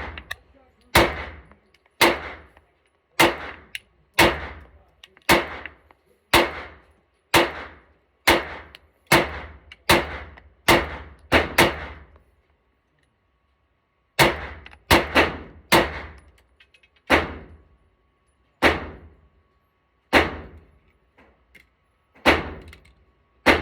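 Glock 19 Gen 3 9mm pistol with a KKM compensator, firing shot after shot at roughly one per second, sometimes faster, each with a short echoing tail. The firing stops for about two seconds just before halfway, then resumes.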